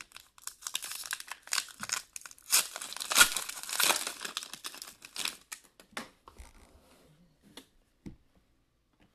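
Foil wrapper of an Upper Deck Ultimate Hockey card pack being torn open and crinkled, loudest about two and a half to four seconds in. After that come only a few light rustles and ticks as the cards are handled.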